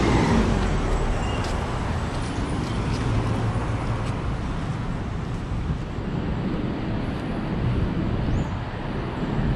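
Street traffic noise: a box truck passes close by at the start and fades within a second or two, leaving a steady low hum of city traffic.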